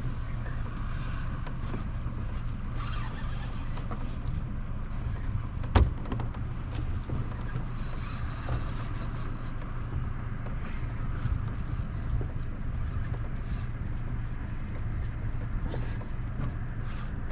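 Steady low hum of a boat's idling motor under wind and water noise, with one sharp knock about six seconds in.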